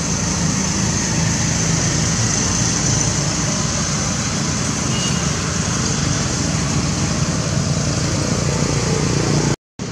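Steady outdoor ambient noise: a constant high hiss over a low rumble, with a brief dropout near the end.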